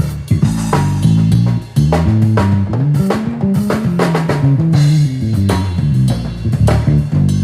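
Drum kit and electric bass guitar playing a groove together: regular kick and snare hits over a bass line that steps up and down in pitch.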